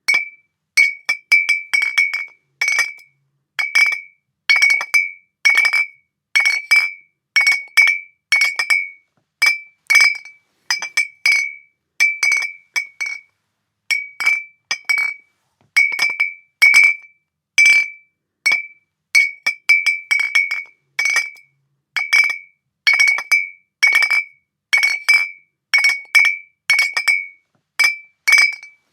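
Glass bottles clinking against each other in a long irregular series of sharp strikes, about one to two a second. Each strike rings briefly on a clear high tone.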